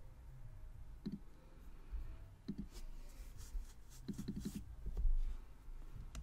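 Scattered clicks from a computer mouse, with a quick run of several clicks about four seconds in.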